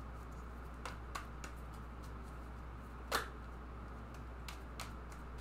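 Tarot cards being shuffled by hand: scattered soft clicks and slaps of cards, with one louder snap about three seconds in, over a steady low hum.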